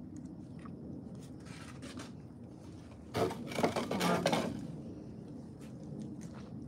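Fork tapping and scraping against a plate, with a louder scraping, rustling noise lasting over a second from about three seconds in as someone gets up from the table.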